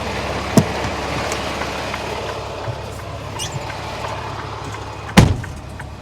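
Semi tractor's diesel engine idling steadily, with two sharp knocks, a small one about half a second in and a loud one about five seconds in.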